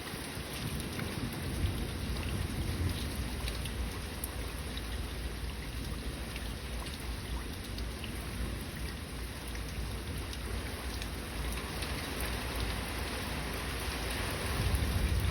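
Steady rain, a dense even hiss with scattered drop ticks, over a low thunder rumble that swells near the end.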